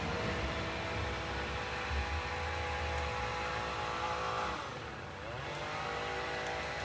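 An engine running steadily. Its pitch dips about four and a half seconds in and climbs back a second later.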